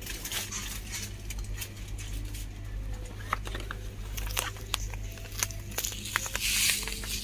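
Scattered light clicks and plastic-like rustling over a steady low hum of the store, with a louder rustle about six and a half seconds in.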